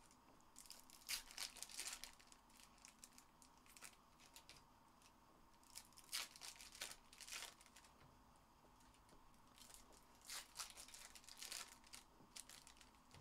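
Foil trading-card pack wrappers being torn open and crinkled by hand, faintly. The crackling comes in short clusters: around a second in, again around six to seven seconds, and again around ten to twelve seconds.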